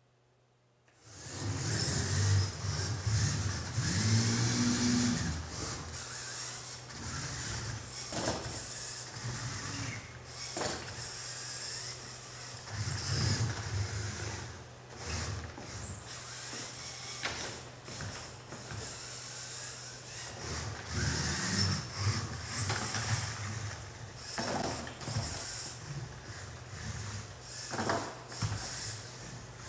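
LEGO robot's electric motors whirring and changing speed as it drives and works its mechanisms, with frequent clicks and knocks from its gears and parts. The sound starts suddenly about a second in.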